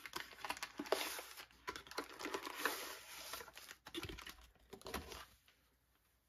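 Small cardboard box opened at its tuck flap and a plastic-wrapped canvas roll slid out: a run of light clicks, scraping and crinkling that dies away about five seconds in.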